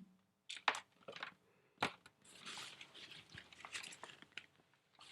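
Rummaging through unboxed packaging: a few sharp clicks and knocks of parts being handled, then a couple of seconds of rustling and crinkling.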